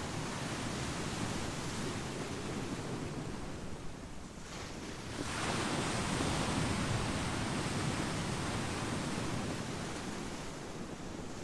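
Pacific surf washing over a beach of smooth volcanic boulders and pebbles. A wave surges in about five seconds in, louder and fuller, and eases back near the end.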